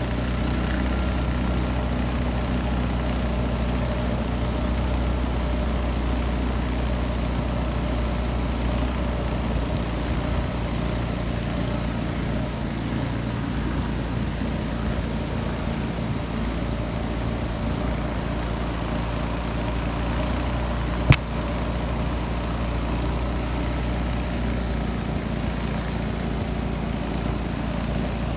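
Small boat's outboard motor running steadily as the boat moves through flooded timber, a low even drone. A single sharp knock about three-quarters of the way through.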